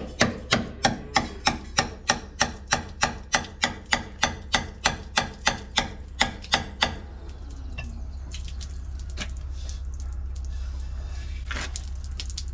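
Hammer tapping on metal parts of a slurry tanker vacuum pump being dismantled, about three even strikes a second, that stop about seven seconds in. A steady low hum runs underneath.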